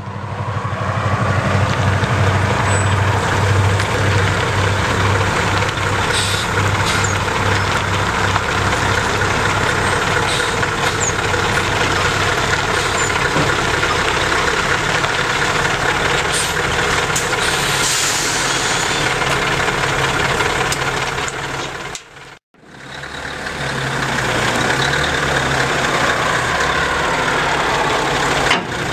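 Scania 144G 460's 14-litre V8 diesel running steadily while the hooklift truck reverses and then tips its container. The sound breaks off for a moment about two-thirds of the way through.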